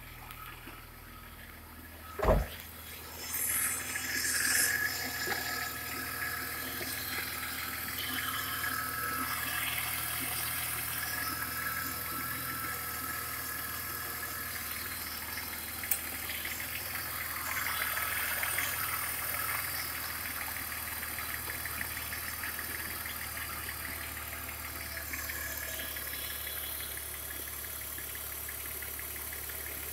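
BMW E39 2.8i's 2.8-litre straight-six (engine code 286S2) being started: a clunk about two seconds in, then the engine catches with a brief rise in revs and settles into a steady idle.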